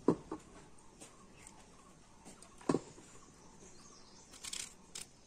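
Small kitchen knife cutting raw green mango over a stainless steel plate, with a few sharp knocks against the metal: one just after the start, one near the middle and one near the end.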